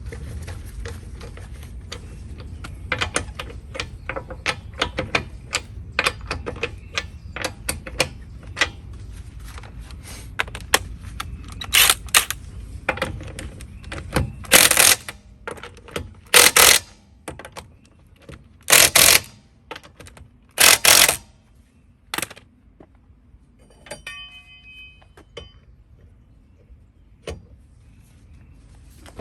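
Ratchet wrench clicking in quick runs as the wheel's lug nuts are spun down and tightened, with several louder half-second runs of fast ratcheting through the middle. Near the end come a few ringing metal clinks.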